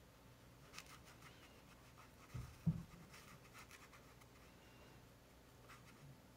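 Faint scratching of a watercolour brush stroking over paper, with a couple of soft low thumps about two and a half seconds in.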